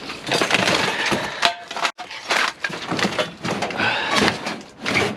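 Scrap and junk being shifted and tossed around: a run of clattering knocks and scrapes.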